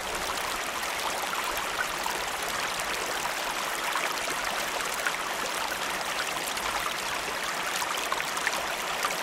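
Stream water running over stones: a steady babble flecked with small splashes and trickles.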